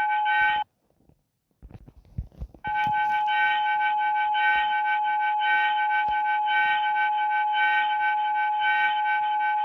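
Emergency alert attention tone: a loud, steady electronic tone with a pulsing, warbling layer above it. It cuts off about half a second in, and after a couple of seconds of near silence a new alert tone starts and holds steady.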